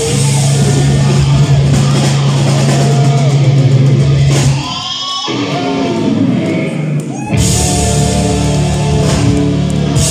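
A heavy metal band playing live through Marshall amplifiers: distorted electric guitars over a sustained low note, with a bending lead melody on top. About halfway through, the low end drops out for a few seconds, and then the full band comes back in.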